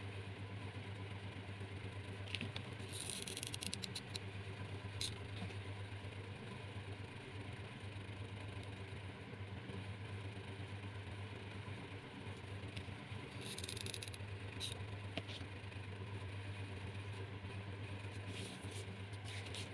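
Metallic tinsel trim crinkling and rustling in the fingers as it is pressed along a skewer edge, in two short crackly spells with scattered light clicks, over a steady low hum.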